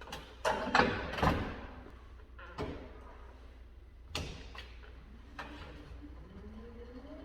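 A series of thuds and knocks, like a door or objects being banged: a quick cluster about a second in is the loudest, then single knocks every second or so. Near the end a faint tone rises steadily in pitch.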